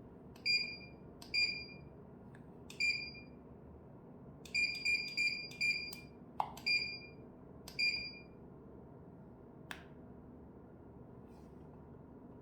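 About ten short electronic beeps from the RG-202F mobile dryer's control panel as its buttons are pressed to set it. The beeps are spaced irregularly, with a quick run of five in the middle, and there are a couple of faint clicks.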